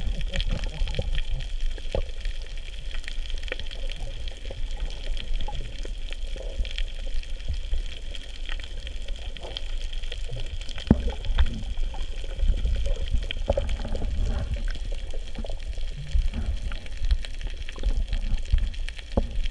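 Underwater sound of a scuba dive heard through a camera housing: a low rumbling wash of moving water with irregular bubbling surges and scattered clicks, over a steady thin high tone.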